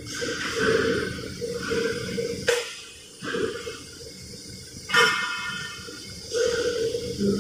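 Metal plates clanking as they are handled at a hole-making machine: a sharp clank about two and a half seconds in and a louder, briefly ringing clank about five seconds in, over recurring bursts of machine noise.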